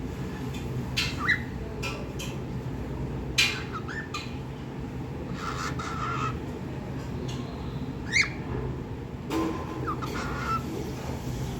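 Pet cockatiel giving short, sharp squawks and chirps every second or two, some sweeping quickly in pitch, over a steady low hum.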